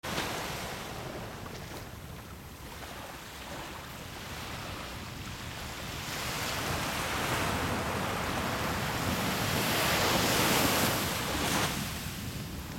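Surf washing on a sandy beach, a steady rush with wind buffeting the microphone. The rush swells about halfway through, is loudest shortly before the end, then falls away.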